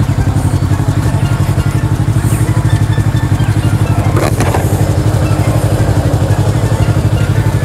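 Motorcycle engine running at a steady speed, its low note pulsing evenly, with a brief rush of noise about four seconds in.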